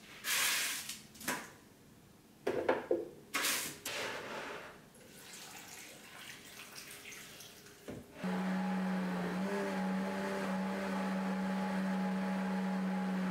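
Countertop blender starts about eight seconds in and runs at a steady speed with an even hum, blending soaked cashews, roasted parsnip and water into a sauce. Before it starts there are a few short noisy sounds as ingredients and water go into the jar.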